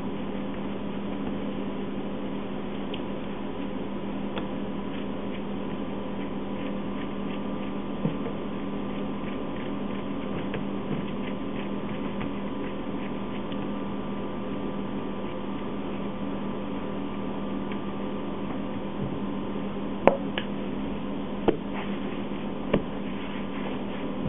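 Baguette dough being rolled and pressed out by hand on a wooden bench: soft squishing and light taps over a steady machine hum. Three sharp knocks come near the end.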